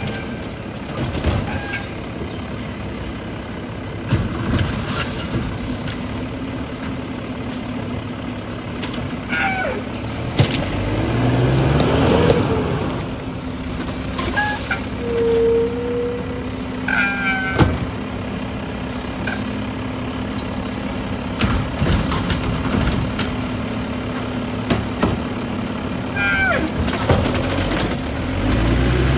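Automated side-loader garbage truck working at the curb. Its diesel engine runs steadily and revs up twice, at the start of each hydraulic arm cycle. Over this come short air-brake hisses, high squeaks and a few sharp knocks as the arm handles the recycling bins.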